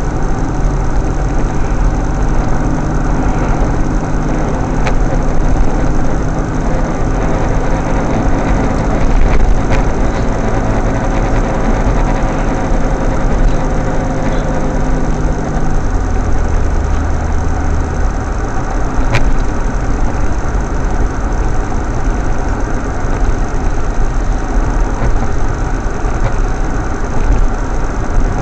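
Car engine and road noise inside a moving car's cabin, steady throughout, with the engine note dropping to a lower pitch a little over halfway through.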